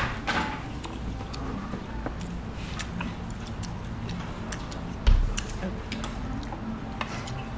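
Table-side eating sounds: scattered light clicks of utensils and dishes and crunching of food, with one dull thump about five seconds in.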